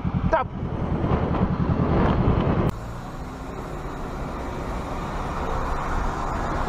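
Motorcycle engine running with wind rush on the rider's camera, a dense pulsing rumble. About two and a half seconds in it cuts off abruptly to a quieter, steady engine and road rumble inside a car.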